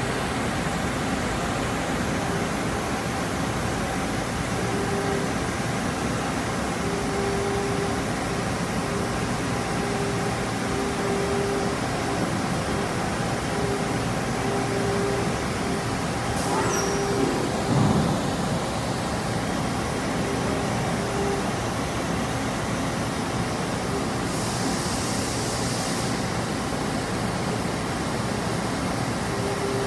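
Mori Seiki ZT1500YB CNC lathe running a cut with its coolant spraying, a steady wash of machine and coolant noise. A steady tone cuts in and out through the middle, there is a short louder sound about eighteen seconds in, and a burst of hiss near the end.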